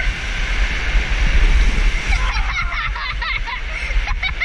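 Water and a raft rushing down an enclosed waterslide tube: a steady wash with a low rumble. About halfway through, the riders' laughter and squeals join in.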